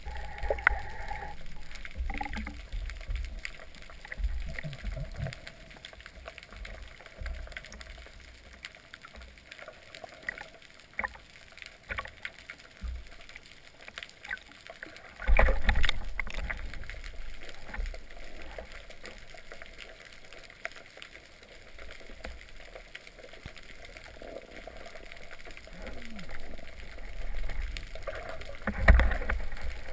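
Water sloshing and gurgling around an underwater camera housing, with scattered knocks and clicks. A loud splash and churn of water comes about halfway through, and another shortly before the end.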